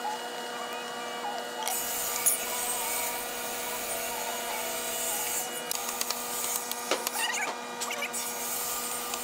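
Hand work on a hardwood frame: a sharp knock about two seconds in and a few lighter taps and clicks near the end, over a steady hum.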